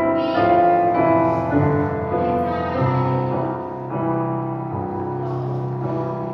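Slow piano music with held notes that change roughly once a second.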